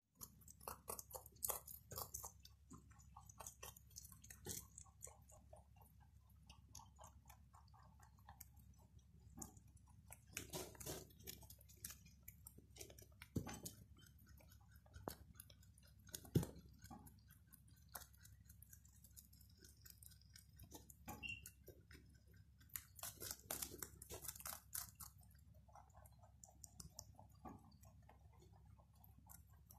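Several rabbits chewing and crunching fresh vegetable stalks and leafy greens: a faint, uneven patter of quick crunching clicks, with denser clusters now and then as they bite.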